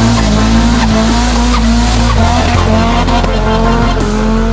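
Burnout in a Nissan 200SX S14A: its turbocharged SR20DET four-cylinder is held at a steady high rev while the rear tyres spin and squeal. Music with a bass line plays underneath.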